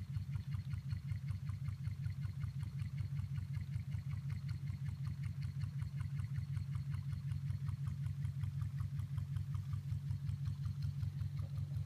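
Model Stirling hot air engine running steadily, with a low, evenly pulsing hum and a fast, regular ticking from its moving linkages.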